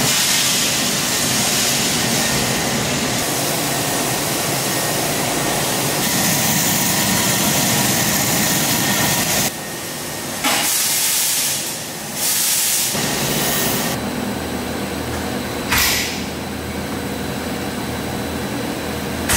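Coffee roaster at the drop: roasted beans pour from the drum and rattle in the perforated cooling tray under its stirring arms, over the steady rush of the cooling fan. From about halfway the sound cuts abruptly down and back up several times.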